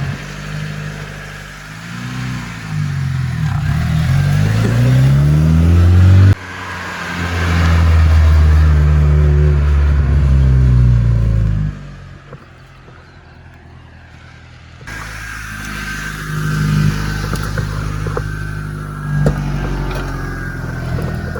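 Turbocharged Honda B18C four-cylinder in a 1992 Civic accelerating hard under load. The engine pitch climbs, drops suddenly at a gear change about six seconds in, and climbs again. Around twelve seconds in it lifts off and goes quiet, then runs steadier from about fifteen seconds in.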